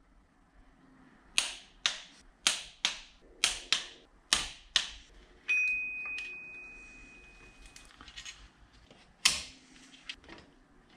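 Hand tools working on the engine: sharp metallic clicks, about two a second, for a few seconds. Then a metal part rings on one high tone for about two seconds as it fades, and one more loud click comes near the end.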